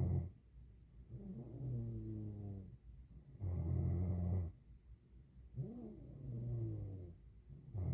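A young woman snoring in her sleep: a loud, low snore about every four seconds, with softer, wavering breathing sounds between the snores.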